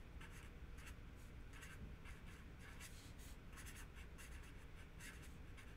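Felt-tip marker writing on paper: faint, short, irregular strokes of the tip on the sheet.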